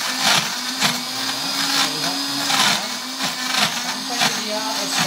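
Countertop electric blender running at high speed, crushing ice in a chocolate drink. The motor's pitch keeps sagging and recovering under the load of the ice, with repeated rattling surges as chunks hit the blades.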